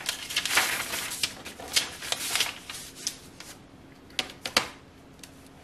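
A large sheet of paper rustling and sliding on a board as it is shifted, with a long metal ruler knocking and scraping as it is set down along the edge. There are two sharp knocks a little after four seconds in.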